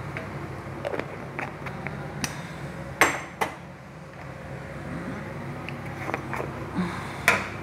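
A few sharp knocks and clinks of kitchen utensils and containers, the loudest two close together about three seconds in and another near the end, over the steady hum of a kitchen exhaust fan.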